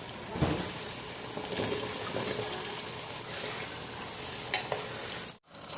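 Food sizzling as it fries in a pan while being stirred, with a few sharp clicks over the steady sizzle. The sound breaks off abruptly near the end.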